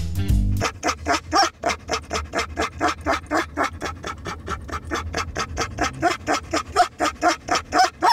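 Dog panting hard and fast, about five breaths a second, close to the microphone, over a low steady rumble. A moment of guitar music cuts off at the start.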